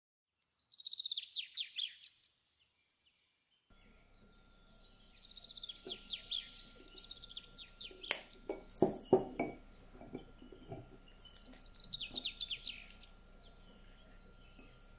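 Bird chirping in short rapid trills, and in the middle an egg tapped several times against the rim of a glass bowl and cracked open; the sharp taps are the loudest sound.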